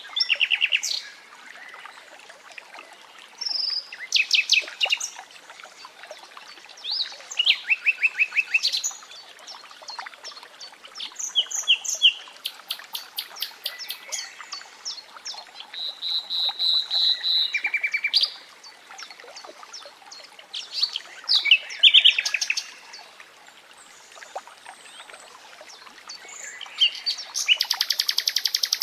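Nightingale singing in separate phrases of fast repeated notes, trills and a held whistle, with short pauses between phrases, over the faint steady sound of running water.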